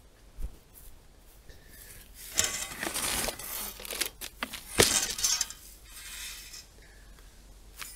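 Wire-mesh transfer cage rattling and clinking as it is handled in the grass, with a sharp metallic clank just under five seconds in.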